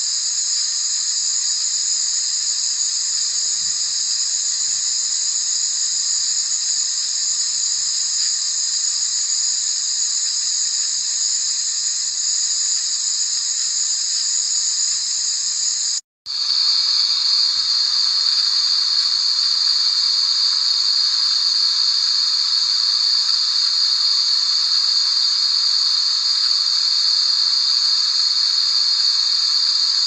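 Steady, high-pitched white-noise hiss with no low rumble. Just after halfway it cuts out for a split second and comes back as a slightly lower-pitched hiss.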